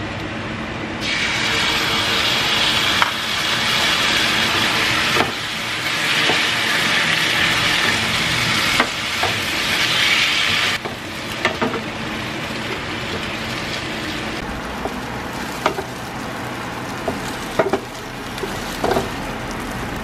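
Chicken and green peppers sizzling loudly in a frying pan as they are stirred with a wooden spatula; the sizzle stops abruptly about eleven seconds in. After that, scattered clicks and knocks of the spatula against the pan.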